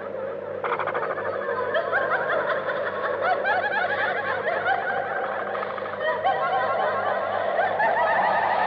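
Many overlapping bursts of laughter, dense and unbroken, over a low pulsing hum: a film soundtrack effect.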